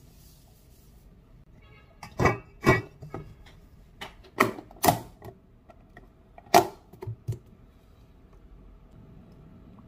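Kitchen clatter: a run of sharp knocks and clunks in small clusters as cookware is handled and set down on the counter and sink.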